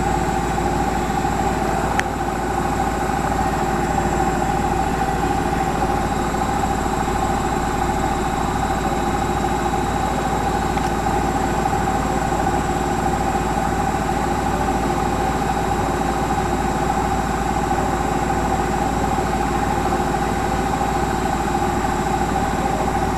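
Siemens Varioperfect washing machine on its spin cycle with an unbalanced load: a steady motor whine over a low, evenly pulsing rumble from the drum.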